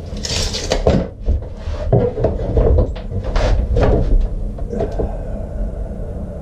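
Wooden board knocked and slid into place on a miter saw table: a series of irregular clunks and clatter, with a short rattle near the start that fits a tape measure snapping back.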